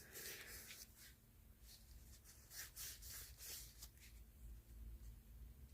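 Faint scratchy rubbing in a few short strokes as the metal parts of a vintage flashlight are wiped clean, over a low steady hum.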